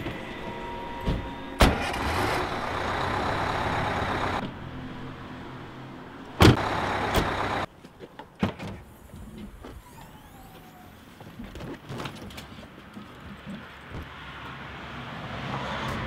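Car doors and boot of a Vauxhall Corsa being opened and shut, with sharp thuds about a second and a half in and twice more around six to seven seconds in, the loudest of them there, between stretches of steady noise.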